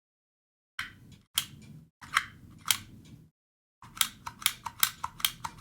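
Vintage Dymo handheld embossing label maker clicking as its trigger is squeezed to emboss characters into the plastic tape. After a short silence come about four sharp clicks, spaced apart, then a quicker run of about eight clicks near the end.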